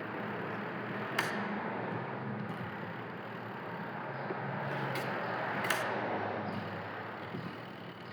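A semi-automatic washing machine's mechanical wash timer being switched on and handled: three sharp clicks, about a second in and twice more near the middle, over a steady low hiss.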